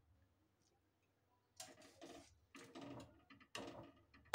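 Steel slotted skimmer scooping boiled gram-flour dumplings out of hot water in a steel pot. After a quiet first second and a half come three short scraping, splashing strokes, then a sharp metal clink near the end.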